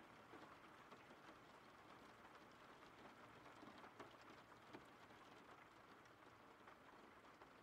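Faint recorded rain: a steady even hiss of rainfall with scattered drop clicks, a couple a little louder near the middle.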